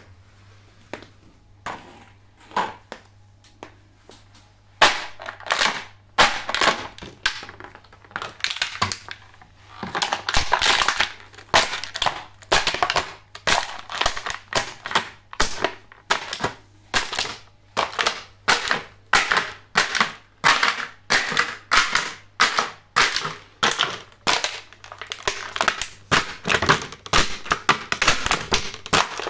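Clear plastic quail egg trays crackling and crunching as steel stiletto heels stamp and grind them flat on a tile floor, a burst of crackle about once or twice a second. In the first few seconds there are only a few separate sharp clicks before the steady crushing begins about five seconds in.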